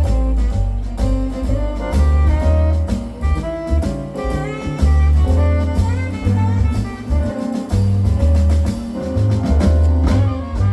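Jazz quintet of trumpet, saxophone, piano, bass and drums playing live, with a loud bass line under melodic horn lines and cymbals.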